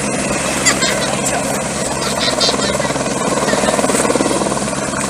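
Firefighting helicopter hovering over the river to fill its slung water bucket, its rotor beating steadily.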